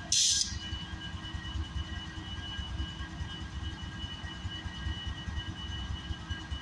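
Union Pacific diesel-electric locomotives rumbling at low speed as they move past, with a steady high whine over the engine drone. A short hiss comes right at the start.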